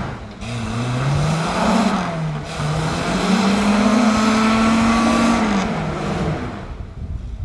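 Suzuki 4WD engine revving hard as it tries to climb a steep, slippery clay track, the revs rising and falling. It holds high revs for about two seconds in the middle, then drops away and fades out near the end.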